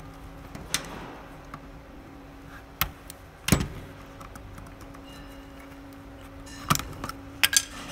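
Scattered sharp plastic clicks and taps from handling a Fluke 87 multimeter as its battery compartment door is worked loose and lifted off the case, the loudest about halfway through and a quick cluster near the end. A faint steady hum runs underneath.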